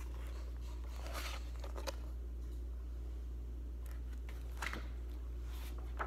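Pages of a picture book rustling in a few short bursts as the book is handled and its pages turned, over a steady low hum.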